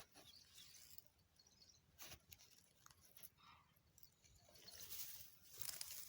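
Faint rustling and crackling noises: a short burst about two seconds in and a longer stretch near the end, over an otherwise very quiet background.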